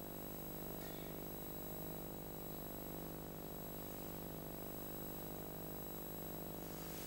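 Steady electrical hum with many evenly spaced overtones over tape hiss, the background noise of a home-video camcorder recording, with a faint click about a second in.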